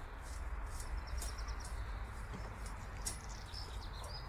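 Outdoor ambience: small birds chirping in short, high phrases, about a second in and again near the end, over a low steady rumble.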